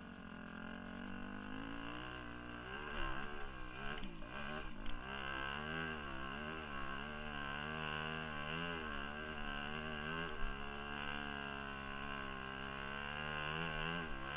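The single-cylinder four-stroke engine of a 2002 Yamaha YZ250F dirt bike, revving up over the first two seconds and then rising and falling in pitch about once a second under the throttle while riding a dirt trail. A few sharp knocks come through, about three seconds, five seconds and ten seconds in.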